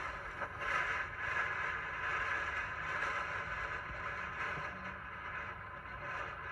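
Strong wind rushing over the microphone, a steady noise that swells and eases, with a low rumble beneath.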